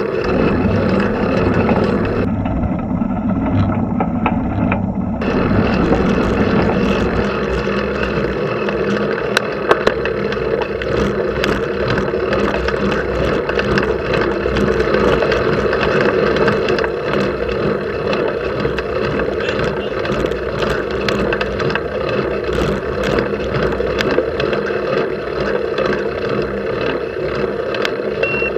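Steady rushing noise with many small rattles and clicks, picked up by a camera mounted on a road bicycle riding up a steep hill.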